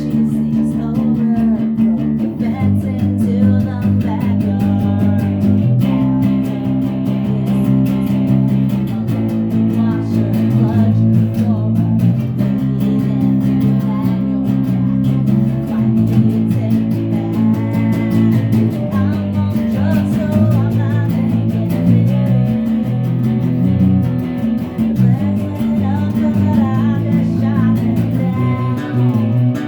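Rock band rehearsing a song: guitar and bass guitar playing steadily, with a voice singing in places.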